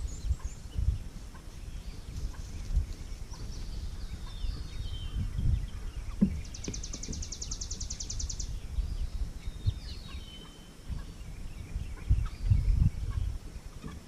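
A flock of meat birds peeping and chirping with short high calls that drop in pitch, and a fast high trill of about two seconds midway. Low rumbling and thumps sit underneath, heaviest near the end.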